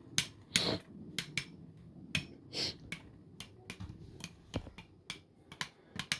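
Two 3D-printed Beyblade spinning tops clashing in a stadium: irregular sharp clicks as they strike each other and the stadium, over a faint low whir of spinning.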